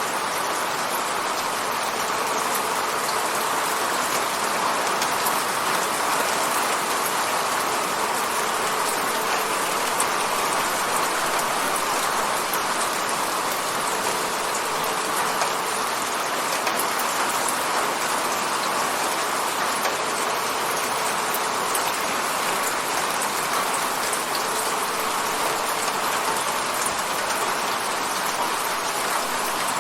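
Steady rain hitting a window, a dense even patter with fine drop ticks, unchanging throughout.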